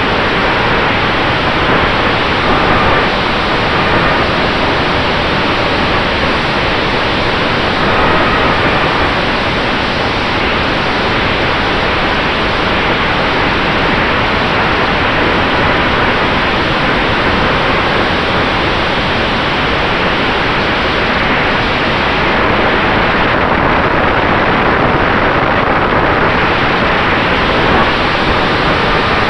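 Steady, loud rush of wind and propeller noise picked up by a camera mounted on an electric RC P-47D Razorback model in flight, with a faint steady tone from the brushless motor and propeller under the rush.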